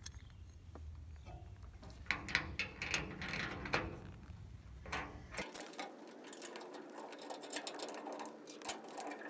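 Small metallic clicks and scrapes as the clean-out cover plate is fitted back onto a fuel transfer pump and fastened, with a denser run of quick ratchet-like ticking through the second half.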